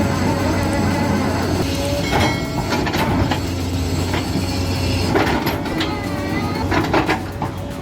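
Heavy machinery running with a steady low hum, overlaid by irregular knocks, clacks and a few brief squeals.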